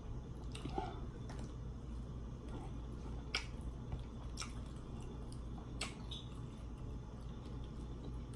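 A person chewing steak and shrimp with wet mouth sounds, and several sharp clicks at irregular intervals, over a steady low hum.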